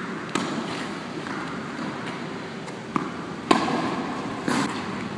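Tennis balls struck with a racket in forehand swings, with ball bounces: a few sharp pops, the loudest about three and a half and four and a half seconds in, each ringing briefly off the walls of an enclosed court hall.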